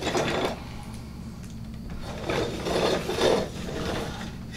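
Hard plastic toy vehicle, a 1993 G.I. Joe Mudbuster, being handled and turned over on a wooden table, with plastic missile parts rubbing and knocking against it. There are two bouts of handling noise, a short one at the start and a longer one in the middle.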